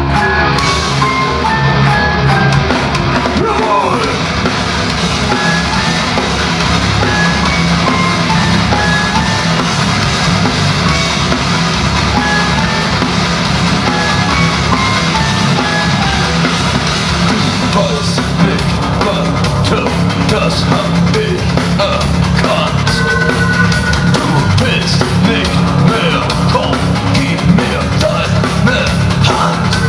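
Live industrial metal band (Neue Deutsche Härte) playing loudly: distorted electric guitars and bass over a full drum kit, with a melody line of stepped notes on top early on. The drumming grows busier about two-thirds of the way through.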